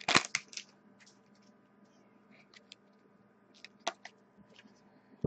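Foil trading-card pack wrapper crinkling in the hands: a short burst of crinkling at the start, then scattered faint crackles and ticks as the wrapper and cards are handled.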